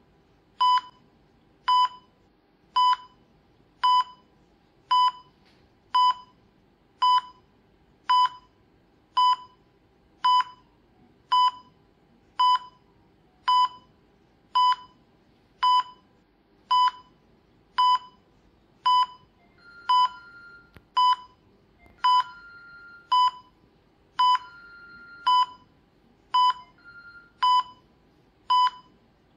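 Operating-room patient monitor sounding its short, high pulse beep about once a second, a steady rhythm that tracks the patient's heartbeat. For a few seconds about two-thirds of the way through, a fainter steady tone comes and goes between the beeps.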